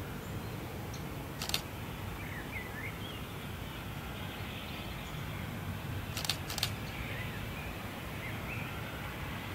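Birds chirping over a low steady rumble, with a sharp click about a second and a half in and two more close together a little past six seconds.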